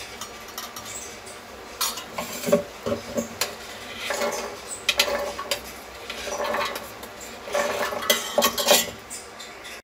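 A steel serving spoon scraping and clinking against a steel bowl as boiled black chickpeas are spooned and tipped into a steel mixer-grinder jar, in a series of short scrapes and knocks.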